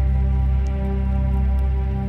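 Ambient music: deep sustained bass notes under soft held chords, with faint light ticks on top.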